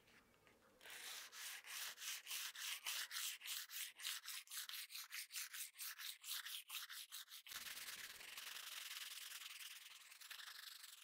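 Hand-sanding the flat of a steel bowie knife blade with an abrasive pad: rapid back-and-forth strokes, about four a second, that merge into a steadier continuous rasp a little past halfway.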